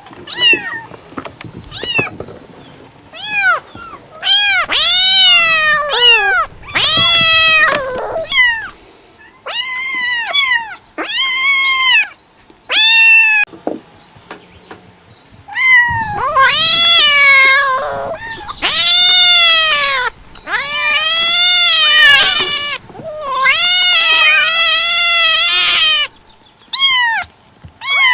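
Cats meowing over and over: a string of loud, drawn-out meows, each rising then falling in pitch, some short and some a second or more long, with the longest run of calls from about halfway through until near the end.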